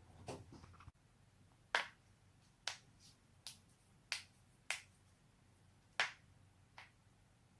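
Knee joints cracking: seven sharp, separate pops, roughly one a second at uneven intervals, after a soft rustle of movement in the first second.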